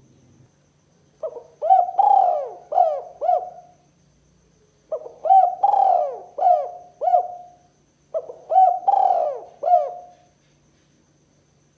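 Spotted dove (tekukur) cooing: three phrases of four or five coos each, a couple of seconds apart.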